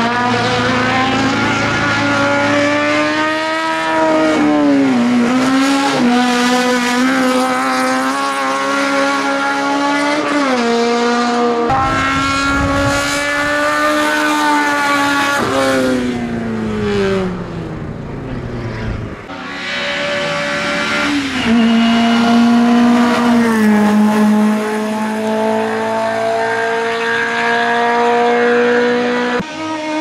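Race-prepared Fiat 127 Sport's small four-cylinder engine at full throttle, climbing through the revs and dropping in pitch at each upshift, over several runs; once the pitch falls away steadily as the car passes.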